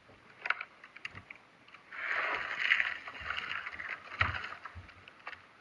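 Slime being squeezed and worked, giving wet squishing and crackling: a few sharp clicks, then a dense crackling for about a second and a half in the middle, and more clicks near the end.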